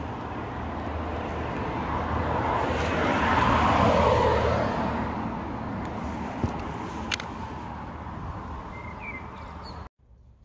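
A car passing in the street: tyre and engine noise swells to a peak about four seconds in and then fades, over a steady low rumble of traffic. A sharp click comes about seven seconds in, and the sound drops away abruptly near the end.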